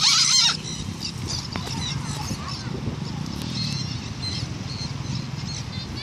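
Parrots squawking: one loud, harsh squawk right at the start, then fainter calls now and then over a steady low rumble.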